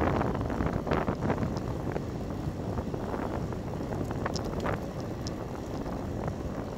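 Wind buffeting the microphone of a bicycle-mounted Cycliq camera while riding, over a steady road rumble, with scattered small clicks and knocks from bumps in the road.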